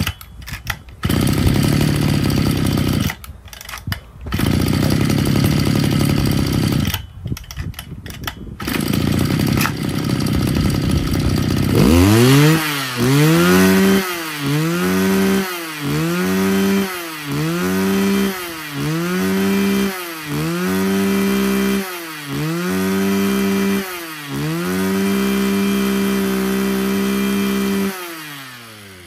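Mitsubishi TL261 26cc two-stroke brush cutter engine running at speed, with a few brief dips. About twelve seconds in, the revs begin rising and falling in regular pulses about every second and a half. The engine then holds steady and winds down as it shuts off near the end.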